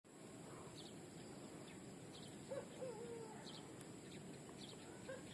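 Faint outdoor ambience with birds calling: short high chirps every second or so, and a clearer low whistled call about halfway through.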